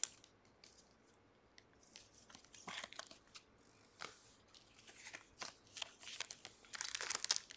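Trading cards and their foil pack wrappers being handled, with faint scattered crinkles and clicks that come thicker near the end.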